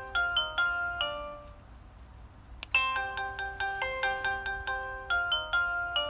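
Nest Hello doorbell chime playing a short tune of quick pitched notes. The tune dies away about a second and a half in; a click comes about halfway through and the same tune plays again until near the end.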